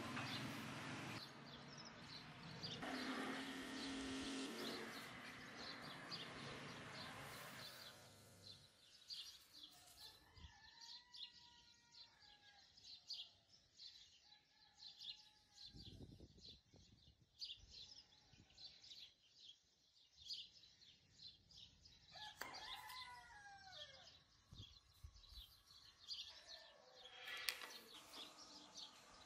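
A rooster crowing faintly in the background, twice: about ten seconds in and again a little after twenty seconds in. Between the crows there are light scratching and handling noises from leatherwork.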